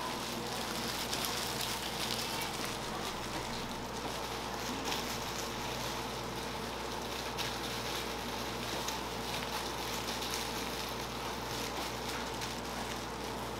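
Beaten egg sizzling on a hot griddle, a steady crackling hiss with a constant low hum underneath.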